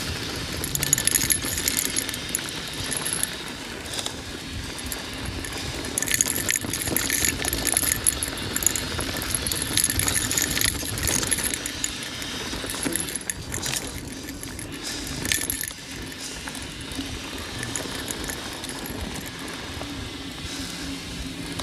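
Mountain bike descending rough dirt singletrack: continuous metallic rattling and clatter from the bike as it runs over rocks and bumps, with tyre noise on dirt and sharp knocks now and then.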